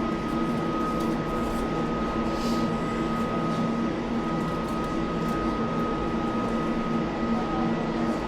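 Elizabeth line Class 345 train running between stations, heard from inside the carriage: a steady rumble of wheels and motors with a constant high-pitched tone over it.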